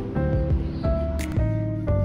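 Instrumental background music: held melodic notes over a light beat.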